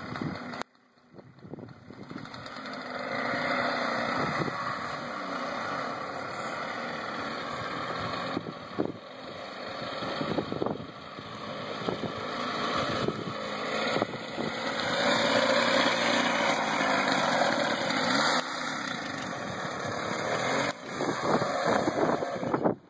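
Homemade mobility scooter's 98cc two-stroke lawnmower engine running as it is ridden along, growing louder as it approaches. Its note rises and falls with the throttle.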